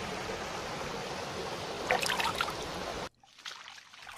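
Spring water running and trickling over a rock ledge as a steady rushing hiss, which cuts off suddenly about three seconds in.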